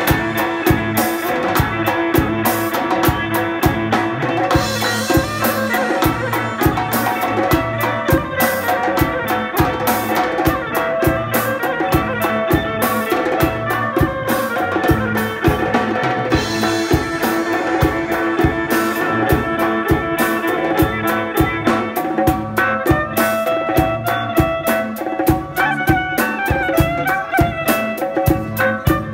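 Live Central Asian band music: drum kit, doira frame drum and a large double-headed drum beat a steady rhythm under a violin melody.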